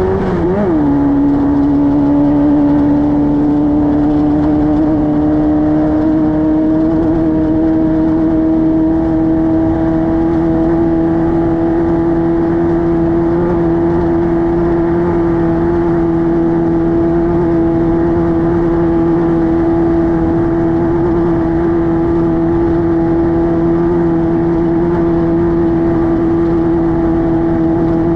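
Air-cooled 1600 cc VW flat-four engine of a Class 5-1600 off-road race car running at speed. Its pitch drops sharply about half a second in, then climbs slowly and holds steady.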